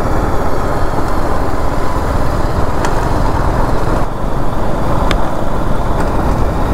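Single-cylinder engine of a BMW G310 GS motorcycle running on the move, with steady road and wind noise.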